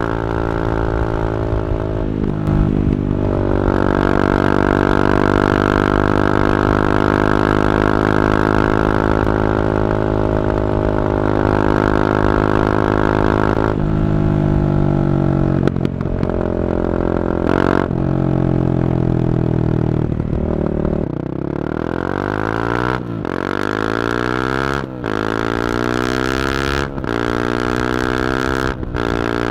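Honda CB300R's single-cylinder engine through an Akrapovic carbon exhaust, ridden under way: mostly a steady drone, with pitch steps near 2.5 s and 14 s. In the last several seconds the pitch sweeps up and down, broken by short dips about every two seconds.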